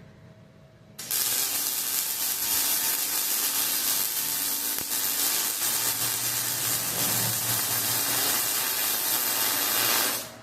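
A steady, loud hiss that starts abruptly about a second in and cuts off sharply just before the end.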